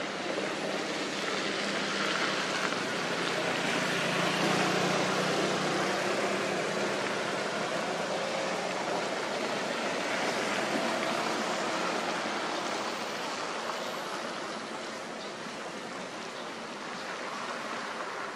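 Steady rushing outdoor background noise with a faint low hum. It swells about four seconds in and again around ten seconds, then eases off.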